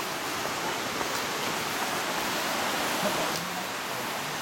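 Steady rushing hiss, even and unbroken, like running water or wind in the forest, with a couple of faint ticks of footsteps on the leaf-covered trail.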